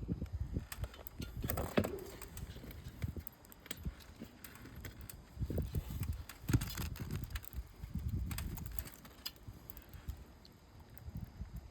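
Scattered light clicks, taps and rattles of hands and tools handling asphalt shingles and fasteners on a roof, over uneven low rumbling bumps.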